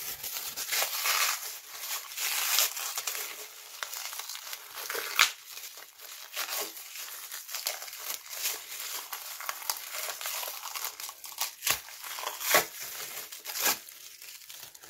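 Clear plastic wrapping film being pulled and crumpled by hand: a continuous run of crinkling with many sharp crackles.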